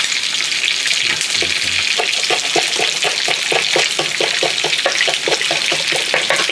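Kitchen knife chopping green leaves on a wooden cutting board: from about two seconds in, a quick even run of taps, about five a second, over a steady hiss.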